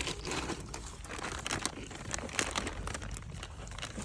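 Irregular crinkling and rustling with many scattered sharp crackles, like something being handled at close range.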